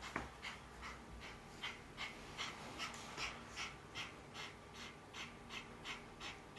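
Miniature Pomeranian breathing fast in short, even puffs, about two to three a second.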